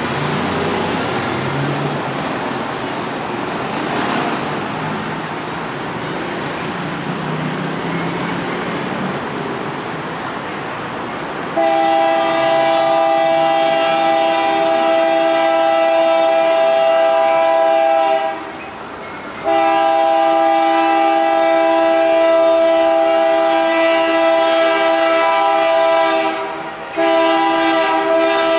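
Approaching Ferromex diesel freight locomotive, its engine working hard under load, then its air horn sounding a chord in three long blasts, the first starting about twelve seconds in, with short breaks between them.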